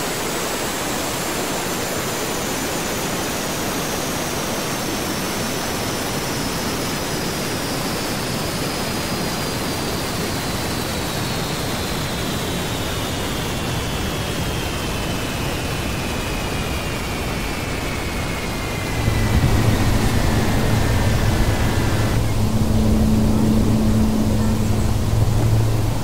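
Aircraft sound effect played over loudspeakers: a steady rushing noise with a high whine that slides slowly down in pitch and cuts off near the end. Shortly before that, a louder low, steady drone joins in.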